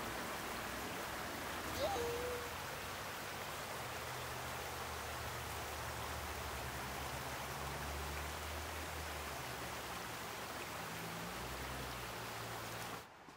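Shallow rocky forest creek running over stones: a steady wash of flowing water with a low rumble under it. About two seconds in there is one brief sliding call, and the sound cuts off just before the end.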